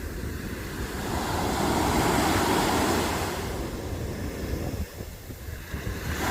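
Sea surf breaking and washing up a sandy beach, one wave building to its loudest about two seconds in and then easing off. Wind rumbles on the microphone.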